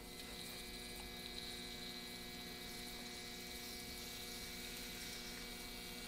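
Steady electrical hum with a faint, even sizzle of eggs frying in butter on a flat-top griddle.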